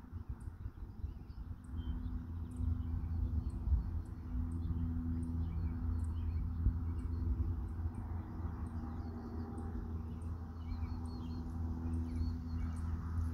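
Outdoor field ambience: a fluctuating low rumble of wind on the microphone over a steady low hum, with scattered small bird chirps throughout.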